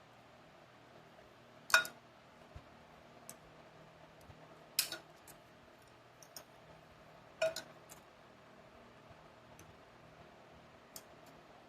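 Sharp metallic clicks and clinks of tools and parts as a snap ring is worked into a 4L60E transmission input drum under the spring compressor. There are three louder clinks about three seconds apart, the first the loudest, with fainter ticks between and after.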